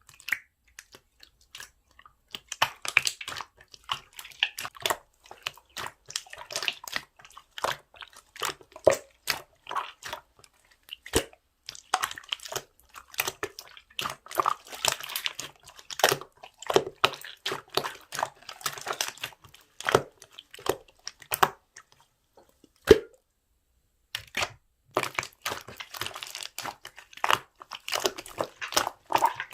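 Slime being squished, folded and poked by hand, making dense, irregular sticky crackles, clicks and small pops, with a brief lull about three-quarters of the way through.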